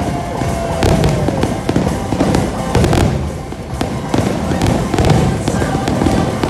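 Fireworks bursting in a rapid barrage, many bangs and crackles in quick succession, with music playing underneath.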